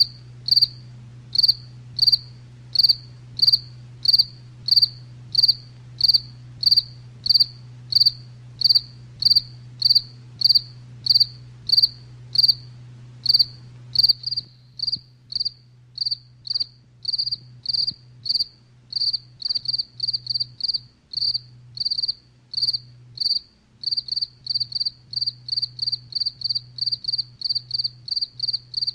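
Cricket chirping: short, high chirps repeated about two a second. About halfway through, the chirps turn quieter, quicker and less even. A faint low hum runs underneath.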